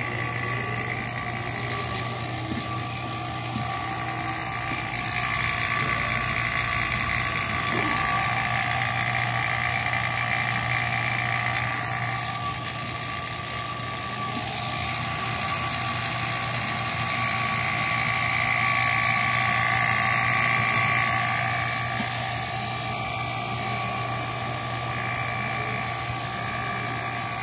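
Outdoor unit of an LG 3.5-ton split air conditioner running on its newly replaced compressor: a steady electric hum with a high whine over it, swelling slightly louder twice.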